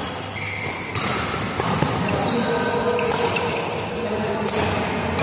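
Badminton doubles rally: several sharp racket strikes on the shuttlecock a second or so apart, with shoes squeaking and scuffing on the court floor.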